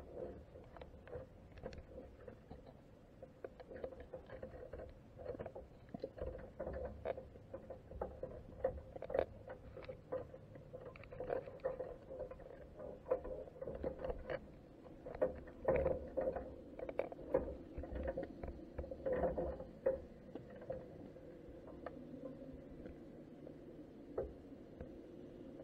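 Underwater sound picked up by a camera inside a crab pot on the sea floor: many irregular soft clicks and taps over a low rumble of moving water, busiest in the middle and thinning toward the end.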